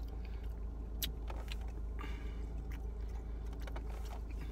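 Steady low hum in a car's cabin, with a few soft clicks and smacks of someone chewing food.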